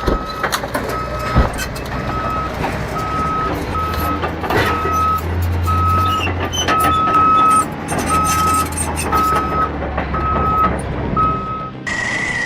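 A heavy machine's reversing alarm beeping steadily at a little more than one beep a second, over a low diesel engine rumble with scattered knocks. The rumble swells for a couple of seconds around the middle. Near the end the beeping stops as a different engine sound with a high whine cuts in.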